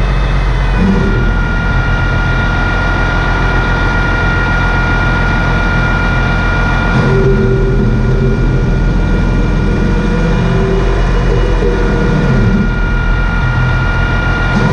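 Heavy diesel engine running steadily, with a steady high whine that comes in about a second in.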